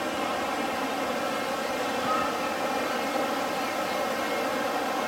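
Steady outdoor hubbub of a large crowd talking, mixed with the rush of fountain jets falling into a pool.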